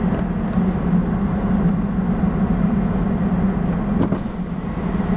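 Car engine running, heard from inside the cabin as a steady low hum. A single brief click about four seconds in.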